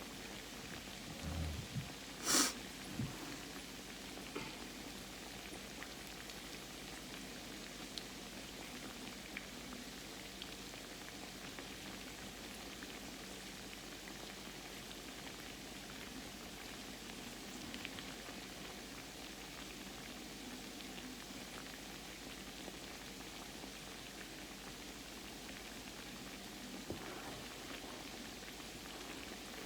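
Croquettes frying in grease: a steady crackling sizzle. There is one sharp clack about two seconds in.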